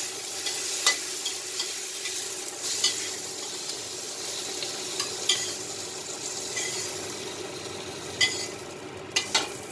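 Squid rings sizzling in oil in a wok, with several sharp clicks and scrapes of a utensil against the pan as the pieces are turned and lifted out.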